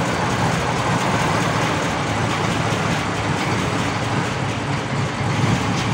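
Honda Civic Wonder's carbureted four-cylinder engine idling steadily while it warms up.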